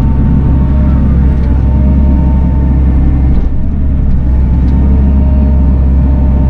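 Bobcat E42 mini excavator's diesel engine running steadily under work, heard from inside the cab as a low drone with a steady whine above it.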